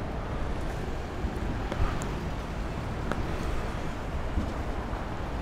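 Longboard wheels rolling over asphalt: a steady low rumble with a few light clicks, mixed with city traffic noise.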